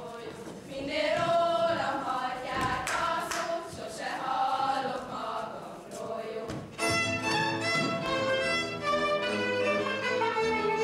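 A group of girls' voices sings a Hungarian folk song unaccompanied. About seven seconds in, a fiddle-led string band with a low bass line strikes up a dance tune.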